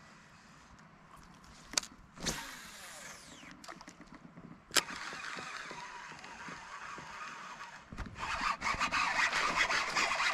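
A cast with a fishing rod and reel: a sharp click, then the whoosh of the cast with line whirring off the reel and slowing down, a second sharp click, and the reel being wound in. From about eight seconds a much louder harsh rasping noise with rapid clicks takes over.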